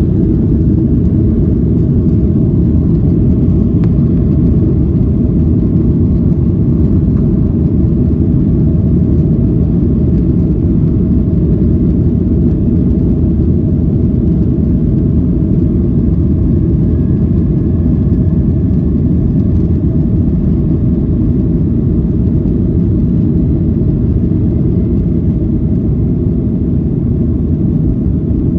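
Boeing 737-800's CFM56-7B jet engines running as a loud, steady low rumble, with a faint, slightly rising whine about halfway through.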